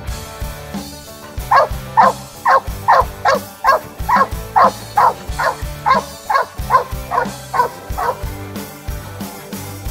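A treeing cur barking at the foot of a tree, a steady run of about eighteen short barks at two to three a second that stops about eight seconds in. This is tree barking, the dog's signal that she has a squirrel treed.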